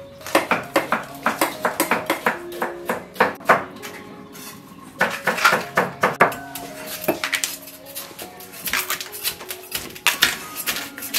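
Knives cutting raw bamboo shoots, a rapid run of sharp clicking and tapping strokes with short lulls, over soft background music.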